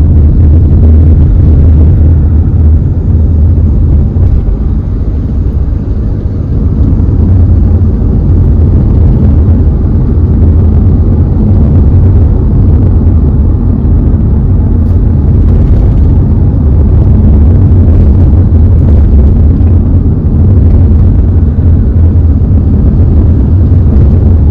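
Loud, steady low rumble of a vehicle driving along a road, with no change in pace.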